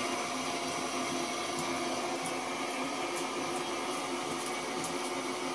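A thin stream of tap water runs into a shower tray as a steady hiss and hum, with faint ticks of splashing as a cat paws at the stream.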